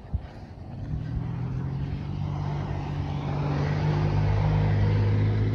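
A motor vehicle's engine and tyres approaching along the road, growing steadily louder from about a second in. The hum drops in pitch about three and a half seconds in as it passes close by.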